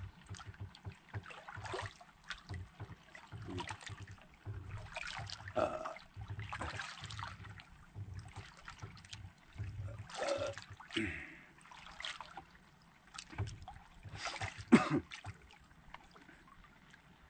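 Water lapping and splashing against the hull of a wooden outrigger boat in irregular bursts, a few splashes stronger than the rest.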